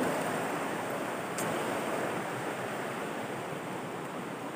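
Steady rush of a shallow, rocky river flowing, with one faint tick about a second and a half in.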